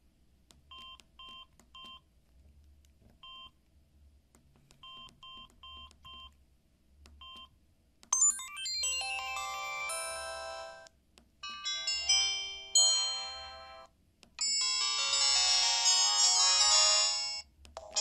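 Samsung SGH-C260 phone: first a scattering of short keypad beeps as its menus are stepped through. Then, about eight seconds in, three of its built-in message alert tones play one after another, each about three seconds long, as the list of tones is scrolled.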